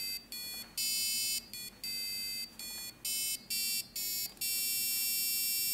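Arduino-driven piezo buzzer playing a sequence of electronic beeps at changing pitches, some short and some longer, like a simple tune; the last note is held for about a second.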